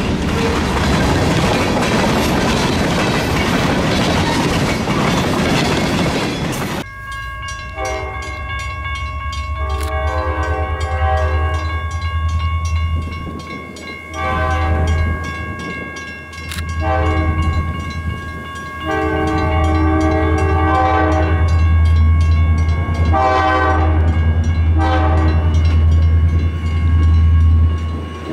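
Freight cars rolling past with a steady rush of wheel and rail noise that cuts off suddenly about seven seconds in. Then a diesel locomotive's multi-chime air horn sounds a series of long and short blasts, over the low rumble of its engine.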